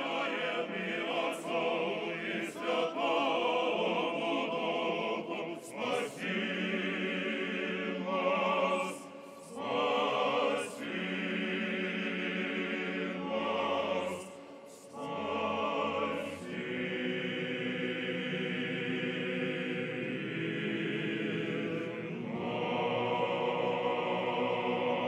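Choral music: a choir singing slow, held chords with a light vibrato, with a couple of brief breaks between phrases.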